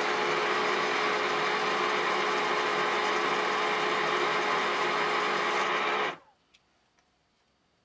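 Small workshop machine tool running steadily with a whirring hum, then cut off abruptly about six seconds in, leaving near silence with a few faint clicks.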